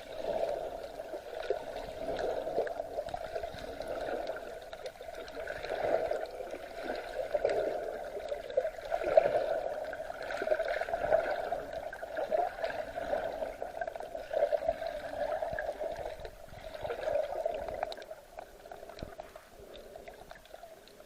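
Sea water sloshing and gurgling, in uneven surges that ease off near the end.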